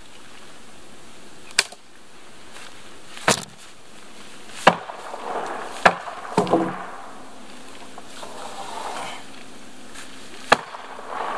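Sling blade chopping into the old dock's wet wooden boards: about five sharp whacks at irregular intervals, with a longer pause before the last, and some brief creaking of the wood after the fourth.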